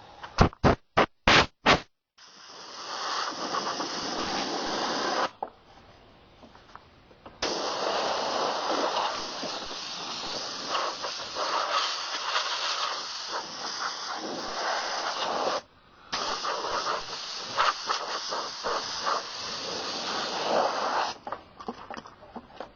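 Compressed-air blow gun cleaning off a mower: five quick blasts in the first two seconds, then three long blasts of hissing air with short pauses between them.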